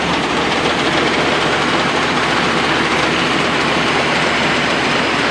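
Nissan RB20DET turbocharged straight-six engine running roughly with a loud, rapid, uneven pulsing. It is missing on cylinders 4 and 5 and is short of vacuum.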